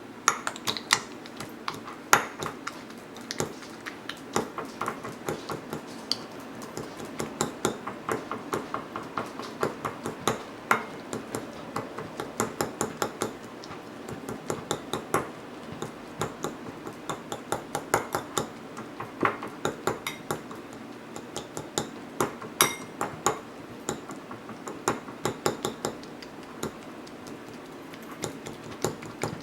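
A utensil clinking and knocking against dishes and containers, with many sharp, irregular clicks, often in quick runs of several.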